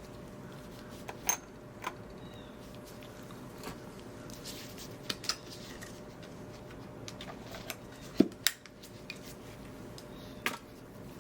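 Scattered light clinks and taps of metal tools and glass handled at a stained glass soldering bench, about eight in all, the loudest a sharper knock about eight seconds in, over a steady low hum.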